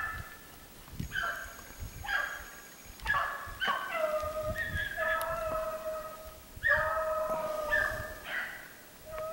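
Hunting hounds baying on a hare's trail: the pack giving tongue on the scent. Short yelps come first, then longer drawn-out bawls from about four seconds in.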